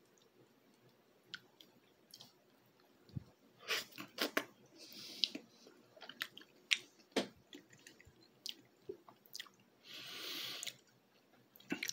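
A person chewing a bite of microwaved Hot Pocket, with soft mouth clicks and smacks that start about three seconds in, and two short hisses.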